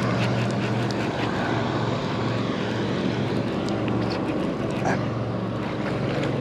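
A steady engine drone with a low hum, with faint scattered ticks over it.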